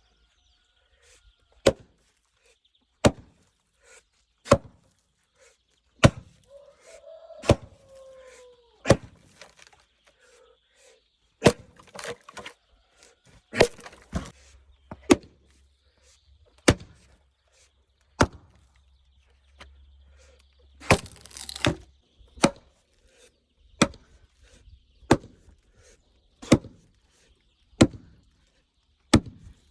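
Axe blows splitting oak logs: a sharp chop about every one and a half seconds, close to twenty in all. A short creak follows one early blow, and about two-thirds of the way through a longer crackle as wood splits apart.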